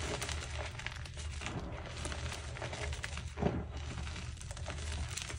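Hands squeezing and crumbling yellow-dyed gym chalk reforms: a steady soft crunching and crackling as the packed powder clumps break apart, with a louder crunch about three and a half seconds in.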